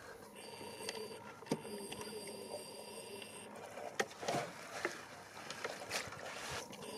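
Faint handling sounds as a large barbel is lifted out of a landing net: the net's mesh rustling, with a few scattered light clicks and knocks.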